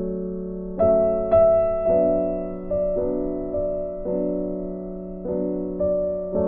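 Background piano music, slow and gentle, with notes and chords struck about once a second and left to ring out.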